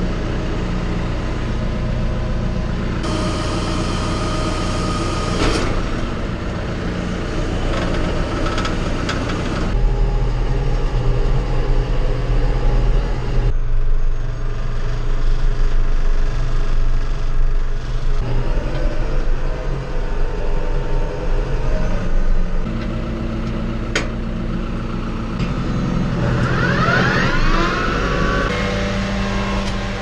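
John Deere 5085M tractor's four-cylinder diesel engine running steadily, heard from inside the cab as the tractor drives, its note and loudness shifting a few times. Near the end, a cluster of whines rises and falls over a couple of seconds.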